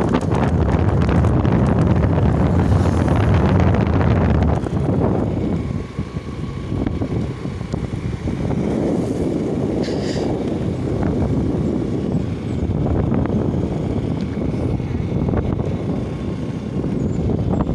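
Wind buffeting the microphone of a phone held on a moving motorcycle, over the rush of the ride. The buffeting is heaviest for the first four seconds or so, then eases to a lighter, steady rush.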